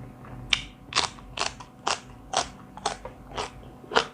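A person chewing crunchy food close to the microphone, with a steady rhythm of about two crunches a second.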